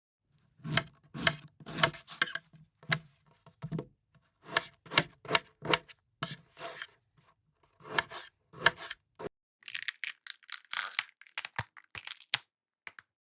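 Kitchen knife cutting on a cutting board: a series of cuts, about two a second with short pauses, each ending in a knock on the board. In the last few seconds come lighter, crisper crunching cuts without the knock.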